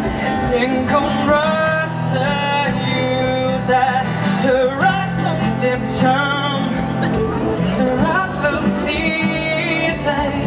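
Live song: a man singing while playing an acoustic guitar.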